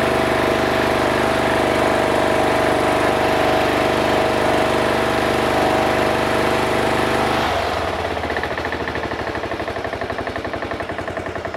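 Briggs & Stratton Intek 16 hp single-cylinder overhead-valve engine on a freshly fitted carburetor, running steadily at full throttle, then throttled back to a lower speed about seven and a half seconds in, where its separate firing beats can be heard. The mechanic hears a pretty bad rod knock in this engine.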